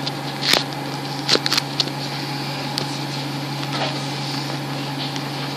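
Steady drone of a coach's engine and cabin heard from a passenger seat while riding, with a few short knocks and rattles about half a second and a second and a half in.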